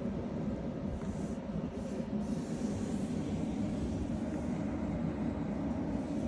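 Strong storm wind during heavy snowfall, a steady low rumble from gusts buffeting the microphone with a faint hiss above it.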